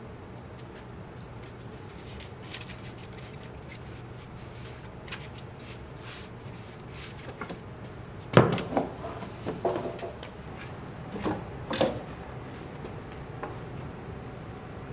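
A wooden 2x4 knocking and clattering against the concrete floor and framing as it is handled: one sharp knock a little past halfway, then several smaller knocks over the next few seconds. Before that, only faint ticks and rustles of handling a foil-faced insulation sheet over a low steady hum.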